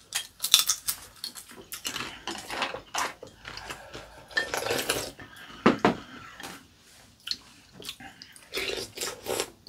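Eating at the table: a fried kelp chip crunched, broth slurped from a bowl, and utensils clicking against ceramic bowls, with one sharp clink about six seconds in.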